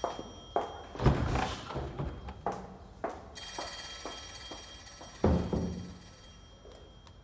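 Telephone bell ringing in steady tones that cut off suddenly near the end. Two heavy thuds come about a second in and again past the five-second mark.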